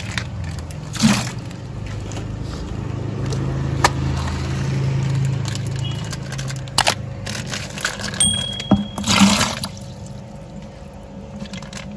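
Water poured from plastic fish bags into a plastic bucket, with the bags crinkling and a few sharp clicks.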